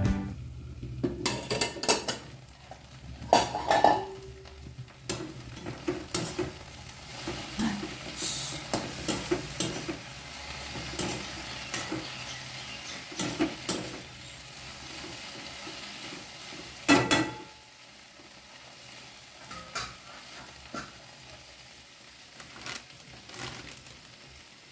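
Okra and potato frying in oil in a wok, sizzling, while a metal slotted spatula stirs them, scraping and knocking against the pan. A louder clank comes about two-thirds of the way through, after which the sizzle is quieter and the knocks fewer.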